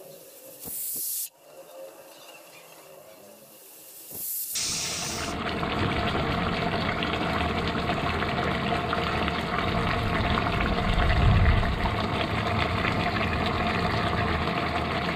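A pressure cooker lets out a short hiss of steam about a second in. From about four and a half seconds in, fatty pork curry bubbles and sizzles steadily in the open pot.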